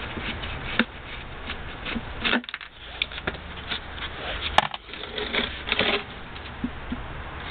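Irregular plastic clicks, taps and scrapes as a screwdriver works at the blower motor's mounting and the motor is twisted and pulled out of the rear heater unit's plastic casing.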